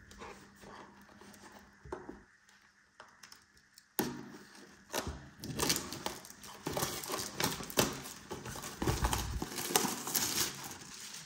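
Plastic trading-card pack wrapper crinkling, and cards being handled. There are a few faint clicks at first, then about four seconds in a dense crinkling starts suddenly and goes on.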